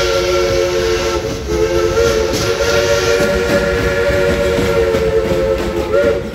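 Steam locomotive's chime whistle blowing a chord of several tones at once. It breaks off for a moment about a second and a half in, then sounds again in one long blast until near the end, over the hiss and rumble of the moving train.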